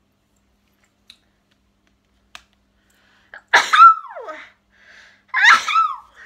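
A woman sneezing twice, about two seconds apart, each a loud, sharp burst with a falling tail.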